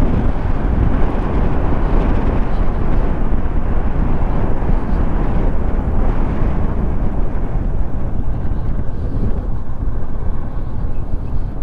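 Wind rushing over the microphone with the motorcycle and road noise of a ride under way, a steady dense rush that eases off a little over the last few seconds.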